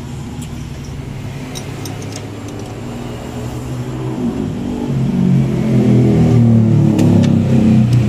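A motorcycle engine running, getting louder and higher about four to five seconds in as it is revved, with a few sharp metallic clicks.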